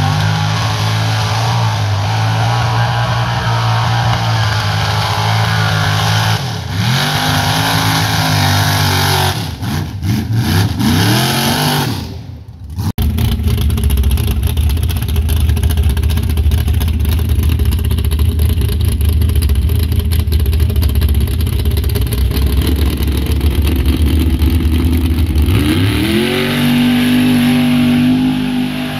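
Mud truck's engine working hard through a mud bog, revving up and down. It cuts off abruptly about halfway and comes back as a steady loud run. Near the end it revs up again as the big tires spin and throw mud.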